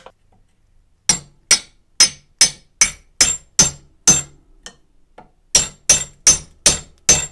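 Steel hammer striking the axe head, or a drift set against it, to drive the old handle out of the eye: a quick run of sharp ringing metal blows, two or three a second, a short lull midway, then another run.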